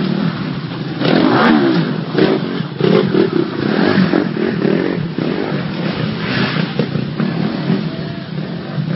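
Enduro dirt bike engine revving in repeated bursts of throttle, the pitch climbing and falling, as the bike is ridden up rocky ground.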